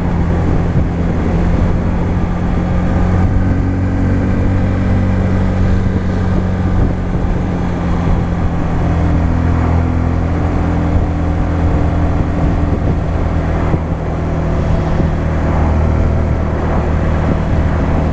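Sinnis RSX 125 motorcycle's single-cylinder engine running at a steady cruise, its pitch shifting a little now and then with the throttle.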